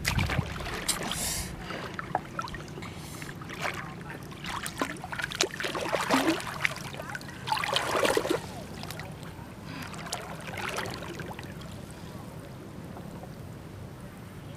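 Shallow floodwater splashing and sloshing as a person wades through it, in uneven bursts that are loudest a little past the middle, then settling to quieter lapping near the end.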